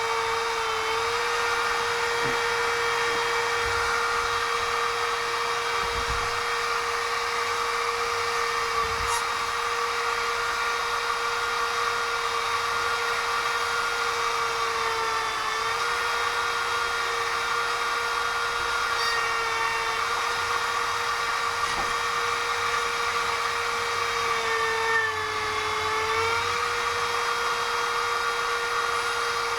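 Small electric drill with a fine bit running steadily at high speed, giving a constant whine. Its pitch sags briefly twice, about halfway and near the end, as the bit bears into the work while drilling tiny holes.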